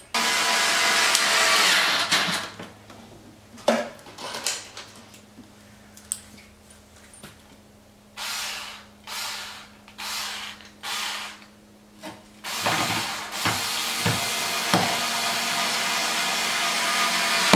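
Cordless screw gun driving screws up into a car's front splitter to snug them: a run of about two seconds at the start, four short pulses in the middle, and a long steady run over the last five seconds.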